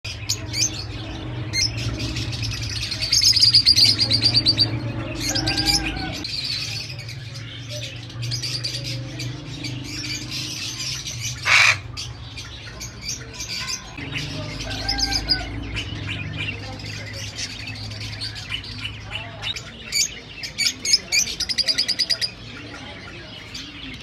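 Caged lovebirds and parrots chirping and chattering in rapid high bursts, with one loud squawk about halfway through. A steady low hum runs underneath.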